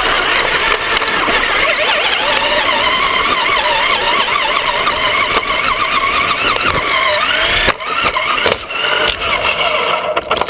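Traxxas electric RC car's motor and gears whining as it drives, the pitch rising and falling with the throttle over rough tyre noise. There is a brief drop at about three quarters of the way through.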